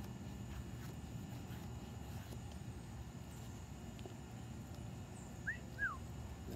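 Faint scraping of a Mora bushcraft knife shaving feather-stick curls off a split stick of wood, over a steady low outdoor rumble. Near the end, two short chirps from a bird are the loudest sounds.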